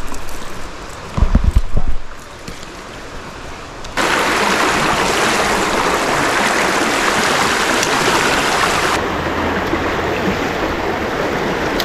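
Rushing river water pouring over a shallow rocky riffle, a steady loud hiss that starts abruptly about four seconds in. Before it there is quieter flowing water with a few low thumps.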